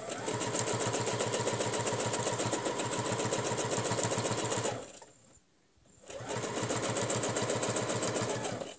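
Domestic sewing machine stitching at a steady, fast rhythm as ruler work is sewn along a hexagon template. It stops just before the five-second mark, then starts again for about three more seconds of stitching.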